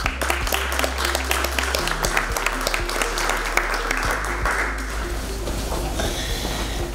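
Audience applauding, the clapping dying away near the end, over soft background music with sustained notes.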